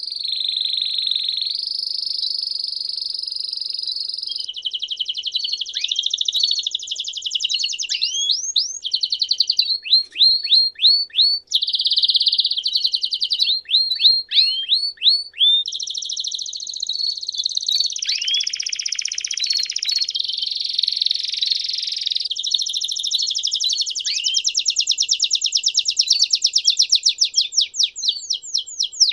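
Domestic canary singing one long, unbroken song of rolls and trills. Sustained rolls alternate with runs of quick, downward-sliding notes, and a fast run of sliding notes comes near the end.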